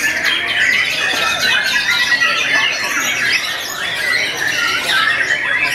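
White-rumped shamas singing all at once, a dense, continuous tangle of overlapping whistles and phrases from many birds.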